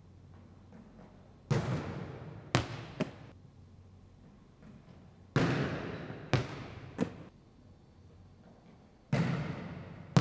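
Volleyball serves: three sharp hand-on-ball smacks, each followed about a second later by one or two hard bounces of the ball on a hardwood gym floor. Every hit echoes around the big, empty gymnasium.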